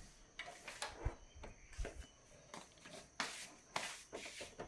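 Soft footsteps and rustling as a person walks carrying the recording phone: irregular short steps and handling noises about every half second.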